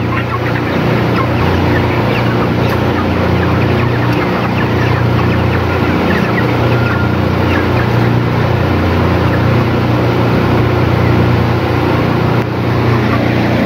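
A flock of 35-day-old broiler chickens clucking and chirping over a steady, loud low machine hum.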